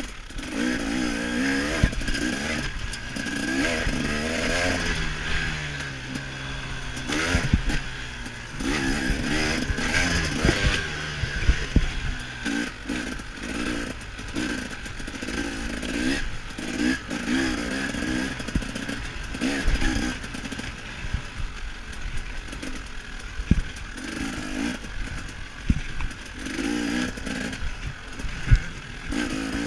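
KTM 300 XC-W two-stroke dirt bike engine revving up and backing off again and again while being ridden, with scattered knocks and rattles.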